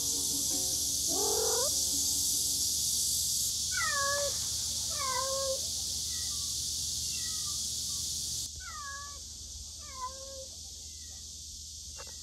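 Kitten meowing loudly and repeatedly: one longer rising meow about a second in, then a string of short calls, a kitten calling out for its mother. A steady high hiss runs underneath.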